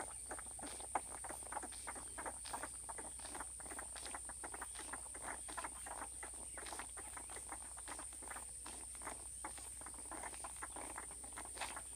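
Boston terrier puppies suckling from their mother, hungry after a night away from her: a fast, irregular run of small smacking and sucking clicks from several mouths at once.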